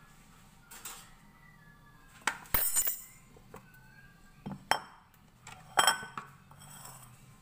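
A mixing bowl and a kitchen knife clinking and knocking against the counter and the wooden cutting board: a few sharp clinks spread over several seconds, with quieter handling ticks between.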